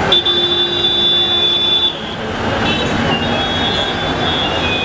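Busy road traffic noise with a long horn blast of about two seconds that starts and stops abruptly at the start, and fainter horn toots again in the second half.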